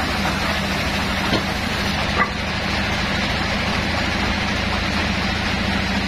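Band saw mill running with a steady machine drone and hum, with two short knocks in the first half.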